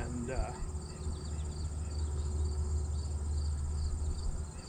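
Crickets chirping in a steady run of fast, evenly repeated pulses, over a steady low rumble.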